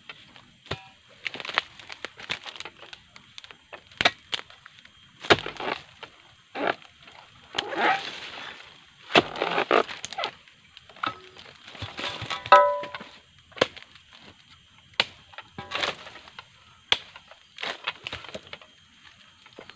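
Oil palm harvesting chisel on a long pole hacking into the base of a low palm's crown: a series of sharp chopping strikes, roughly one a second, cutting through frond bases and bunch stalks.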